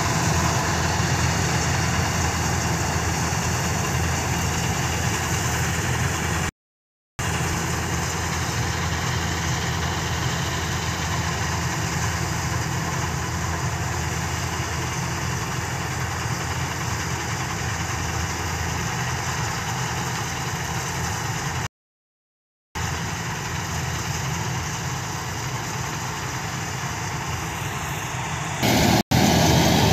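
Kartar 4000 combine harvester's engine and threshing gear running steadily while harvesting wheat. The sound drops out twice for about a second and gets louder near the end.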